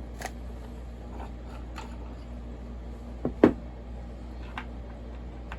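Parts and tools being handled on a workbench: a few light clicks and a louder double knock about three and a half seconds in, over a steady low hum.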